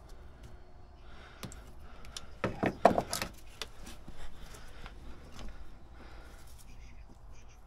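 Pliers clicking and rattling against metal fittings and a hose, with a burst of loud sharp clicks about two and a half to three seconds in.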